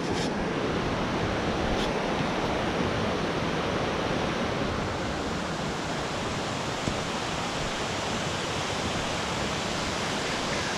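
Steady rushing of a nearby waterfall, loud and unbroken.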